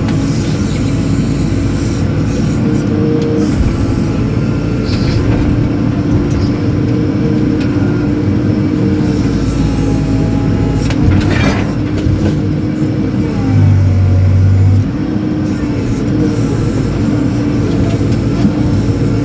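JCB 4CX backhoe loader's diesel engine running steadily while the machine digs. About two-thirds of the way through the engine note sags and a deep hum swells for about a second before the steady running resumes.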